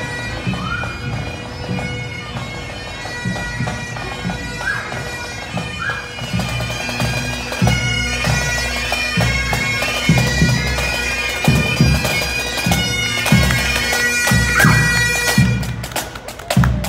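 A pipe band's Great Highland bagpipes playing a march tune over their steady drones.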